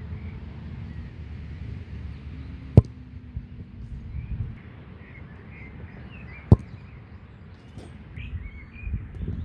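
Two sharp thuds of a football being kicked, a little under four seconds apart, over a steady low rumble and faint birds chirping.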